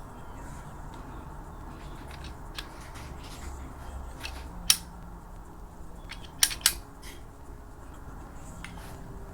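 A few sharp clicks over steady low background noise, the three loudest at about five seconds in and twice in quick succession near six and a half seconds.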